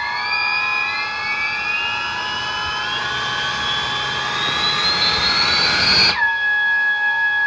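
Four 70 mm electric ducted fans on a 6S battery whining together in several tones, their pitch climbing steadily as they spool up for about six seconds, then dropping suddenly back to a steady lower whine near the end.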